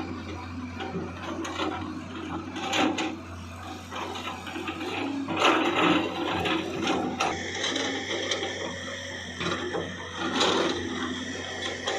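Tata 200 hydraulic excavator working: its diesel engine hums steadily under a rattling, scraping clatter, with louder surges of noise three times as the machine digs and loads a tipper.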